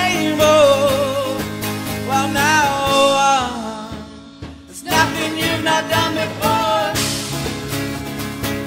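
Live band playing a song: a man singing over guitar. The music drops out briefly about halfway through, then the band comes back in together with a sharp hit and the singing resumes.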